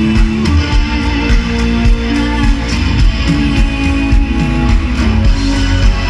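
Live band music played loud: strummed electric guitar and bass over a steady drum beat.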